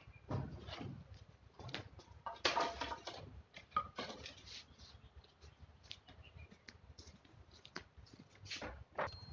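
Dry sticks and pieces of wood scraping and knocking on a concrete floor as they are picked up and moved, in irregular bursts, the busiest about two and a half seconds in.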